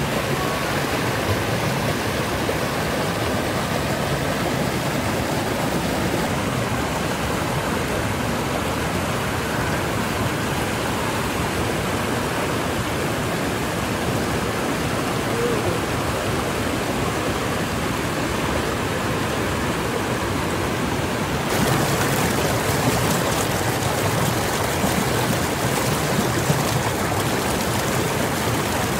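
Mountain creek rushing over boulders and small rapids: a steady wash of water noise. About three-quarters of the way through it turns brighter and hissier, as closer whitewater takes over.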